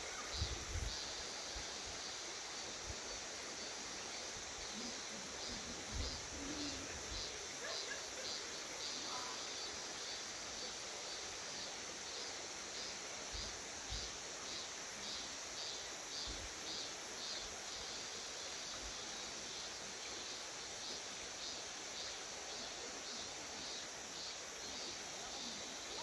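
Cicadas calling in a steady, rhythmically pulsing chorus, about two pulses a second, over the even rush of a mountain stream.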